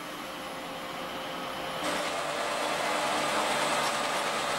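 High-speed paper sheeting machine running, a steady whirring mechanical noise that grows louder about two seconds in.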